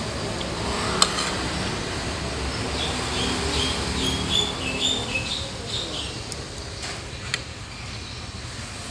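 Metal spoon clicking against a ceramic plate, one sharp click about a second in and a few lighter ones later, over steady background noise. A run of short high chirps comes in the middle.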